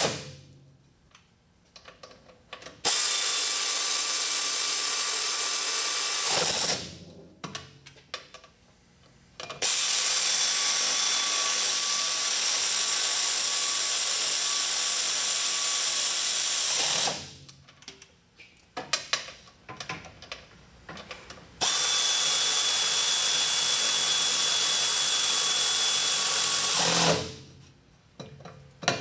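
Pneumatic air ratchet running in three long runs of several seconds each, a steady whir with a high air hiss, tightening the driveshaft yoke bolts. Short clicks and taps come in the pauses between runs.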